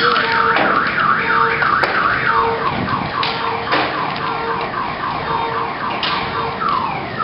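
Car alarms sounding. One runs a fast up-and-down warble that switches about three seconds in to a string of repeated falling sweeps, while another beeps a lower tone on and off a little more than once a second, over a steady hiss.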